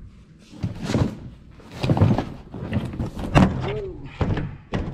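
A large cardboard parts box being handled and shifted: a series of knocks and sliding scrapes about a second apart.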